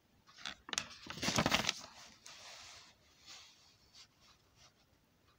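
A paper page of a hand-drawn picture book being turned by hand: a rustling, scraping burst of paper about a second in, then a softer rustle and a few light ticks as the page settles.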